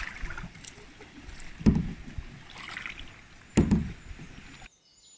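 Canoe paddling on a river: two sudden, dull thumps about two seconds apart as the paddle strokes against the plastic canoe, over a faint wash of water. The sound cuts off abruptly near the end.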